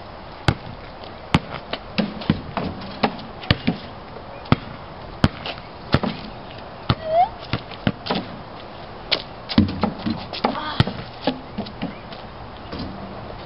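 A basketball bouncing on an asphalt driveway as it is dribbled: a sharp slap at each bounce, coming irregularly at about one to two a second.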